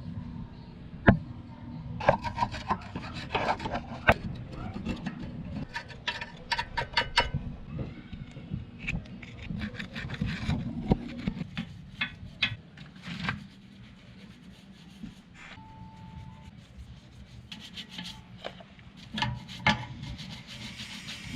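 Hand-tool work on motorcycle parts: irregular scraping and rubbing with many sharp clinks and knocks, busiest in the first half and sparser later.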